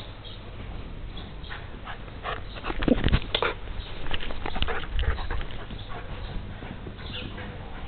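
Goldendoodle puppy close to the microphone, whimpering and panting, with a cluster of scuffs and knocks, loudest about three seconds in, as it comes right up against the camera.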